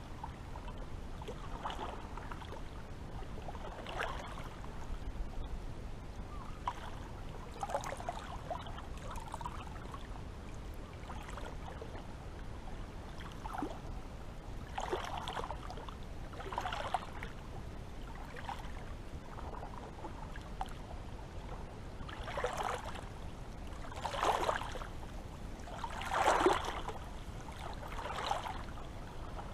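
Small sea waves lapping and splashing at irregular intervals, a short wash every second or few over a faint steady hiss; the splashes grow stronger near the end.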